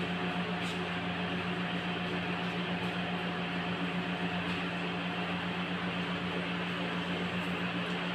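Steady mechanical hum with an even hiss, unchanging throughout, like a running fan or blower.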